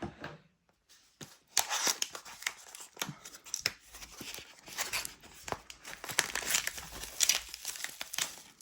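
Packaging being opened by hand: crinkling and tearing, a short rustle at the start, then near-continuous crackling from about a second and a half in as the replacement battery is unwrapped.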